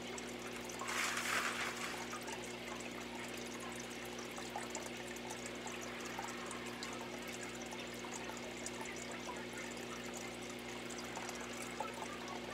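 Steady hiss of room background noise with a low hum under it, and a brief louder burst of noise about a second in.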